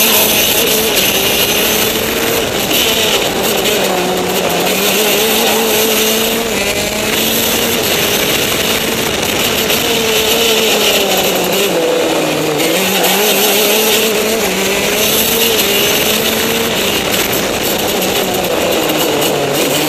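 Kart engine running hard on track, its pitch climbing and falling with the throttle, with a sharp drop about two-thirds through and another near the end as the kart slows for corners.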